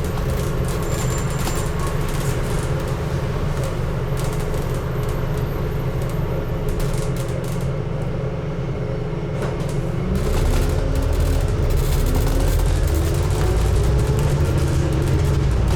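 Scania N250UD double-decker bus running, its engine and drivetrain heard from inside the cabin at the front, with a steady low hum. About ten seconds in the engine grows louder and its note rises over several seconds as the bus accelerates.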